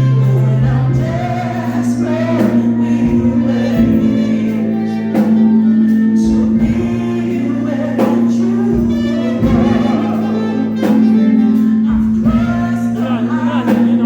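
A voice singing a slow song over an accompaniment of long, held low chord notes.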